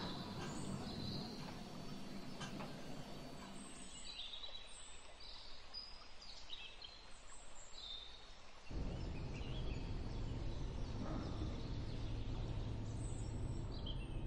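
Small birds chirping in short, high calls over a steady background hum, which gets louder in its low end about nine seconds in.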